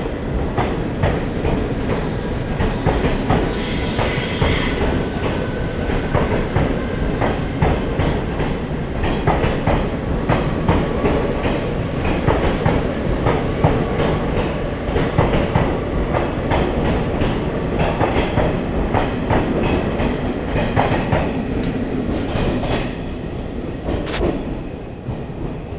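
Passenger express train rolling through the station, its wheels clattering over the rail joints, with a brief high wheel squeal about four seconds in. The sound trails off near the end.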